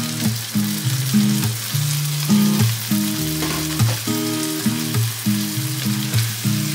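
Chorizo, onion and garlic sizzling steadily in a frying pan as chopped tomatoes go in, with some stirring. Background music with a low, steadily moving melody plays over it.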